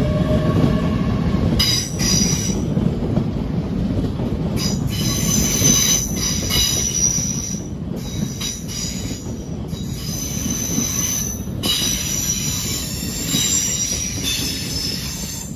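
LNER Azuma train moving slowly along the platform, its wheels rumbling steadily, with a high-pitched wheel squeal that comes and goes several times.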